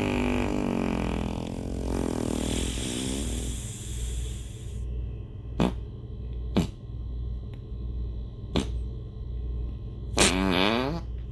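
A series of farts: a long wavering, fluttering one that trails off into a hiss over the first few seconds, then three short sharp pops a second or two apart, and another fluttering fart near the end. A steady low hum lies underneath.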